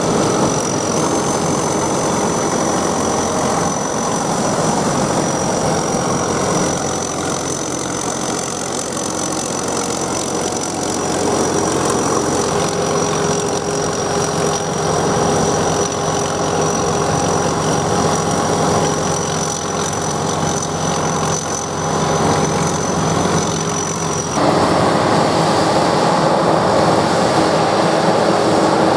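Sakpattana SS100 mini rice combine harvester running steadily, its engine and machinery making a continuous drone with a thin, steady high whine. About three-quarters of the way through, the sound changes abruptly and the whine stops.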